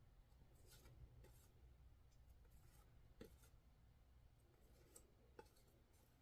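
Near silence, with a few faint soft rustles and ticks of trading cards being handled and shuffled.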